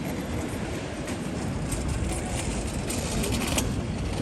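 City street ambience: a steady rumble of passing traffic, with faint scattered ticks such as footsteps.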